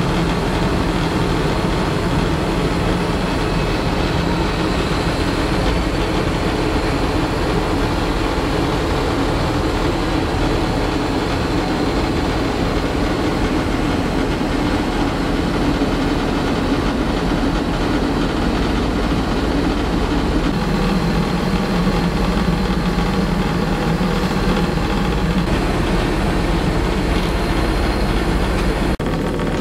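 Steady in-flight cabin noise of an Airbus A380: a constant low rumble and rush of air and engines, heard inside the aircraft lavatory. The low hum shifts slightly about twenty seconds in.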